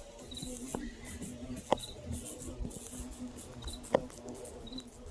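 Night ambience: short high chirps repeating every second or so over a pulsing low hum and faint high ticking. Two sharp clicks stand out, about a second and a half in and near the end.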